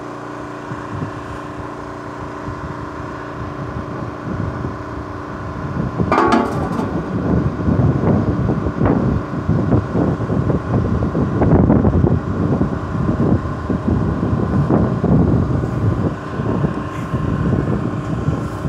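An engine running steadily at an even pitch. From about six seconds in, wind and handling noise buffet the microphone over it.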